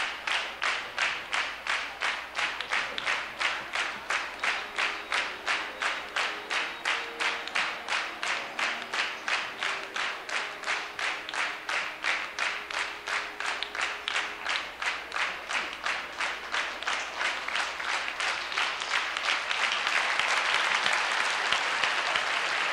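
Large audience clapping in unison, about three claps a second, calling for an encore. Near the end the rhythm breaks up into loud, continuous applause.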